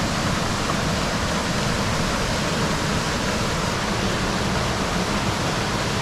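Waterfall rushing steadily: a constant, even noise of falling water close by.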